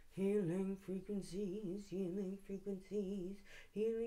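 A woman's voice singing wordless, warbling syllables at a fairly steady pitch, light-language vocalising rather than speech.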